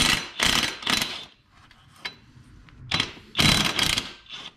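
Handheld cordless power tool spinning bolts in short bursts: three quick runs, a pause broken by a single click, then several more runs near the end.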